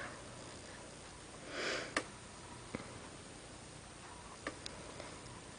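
Quiet room with one short sniff about one and a half seconds in, followed by a sharp click and a few faint ticks.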